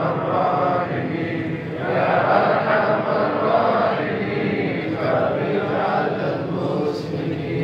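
Many men's voices chanting together in unison: the congregation's sung refrain of an Arabic supplication (dua). It comes in long phrases with short breaks between them.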